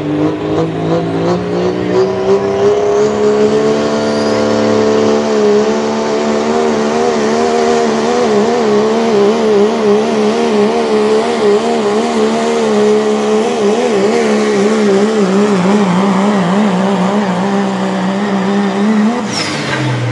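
Turbocharged diesel Ford Super Duty pickup pulling a sled at full throttle. The engine's pitch climbs over the first few seconds, then holds high with a fast wavering. About a second before the end it falls away sharply as the throttle comes off at the end of the pull.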